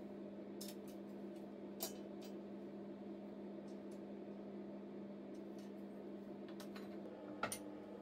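Scattered light metal clicks and clinks as pieces and tools are handled at a steel workbench and vise, over a steady low electrical hum. The sharpest clinks come about two seconds in and near the end.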